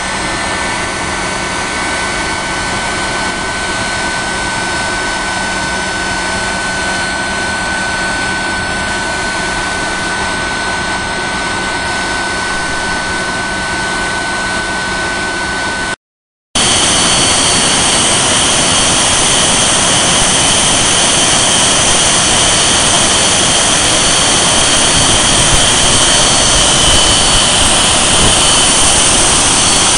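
Westinghouse J34 axial-flow turbojet running steadily on a ground test stand: a loud, dense rush of noise with a steady high whine. After a brief break about halfway through, it is louder, with a higher whine.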